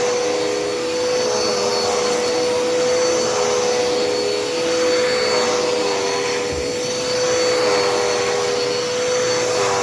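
Dirt Devil Endura Reach corded upright vacuum cleaner running on carpet, a steady motor whine over airflow noise that swells and eases a little as it is pushed back and forth.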